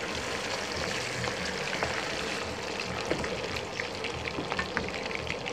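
Food frying in hot oil: a steady sizzle with many small crackles and pops.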